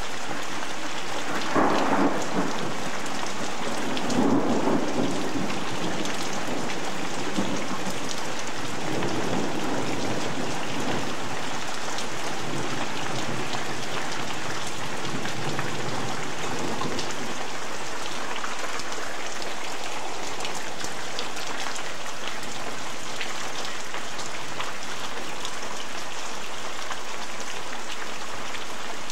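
Heavy rain falling steadily, with rolls of thunder about two and four seconds in and a fainter rumble around ten seconds in.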